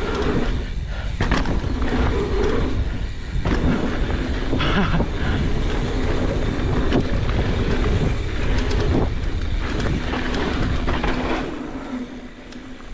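Mountain bike riding fast down a dirt singletrack, heard from a camera mounted on the rider or bike: a continuous rumble of tyres and wind with frequent clicks and rattles over bumps. It gets quieter near the end.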